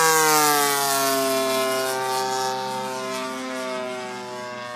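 36cc petrol engine of a large RC Seagull Dewoitine model plane turning an 18x10 propeller in flight. The engine tone drops in pitch as the plane passes, then holds steady and fades as it flies away.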